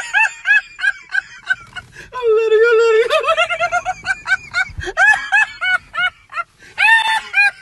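Hysterical laughter in short, high-pitched squeaky whoops, about three a second, with one longer drawn-out note about two seconds in.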